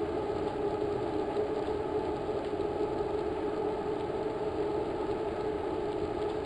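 A steady mechanical drone, even in level, with its strongest part a low-middle hum.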